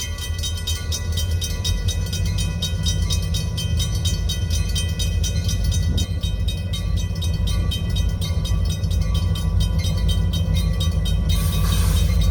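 Freight train rolling past: a steady low rumble of wheels and cars on the rails, with high steady tones above it and a brief hiss near the end.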